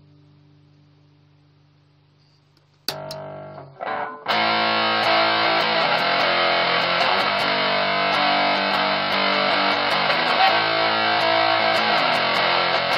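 Electric guitar played through a 1983 ProCo Rat distortion pedal. A held chord fades away, a couple of notes are struck about three seconds in, and from about four seconds in there is steady, heavily distorted playing.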